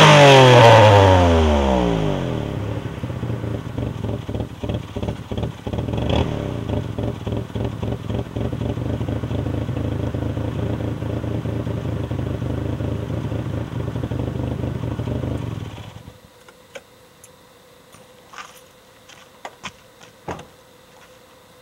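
Exhaust of a bored-and-stroked Suzuki G10 1.0-litre three-cylinder with a performance camshaft, heard at the tailpipe: the revs fall quickly from a high rev back to idle in the first two seconds, then it idles steadily until it is switched off about sixteen seconds in. A few faint clicks follow.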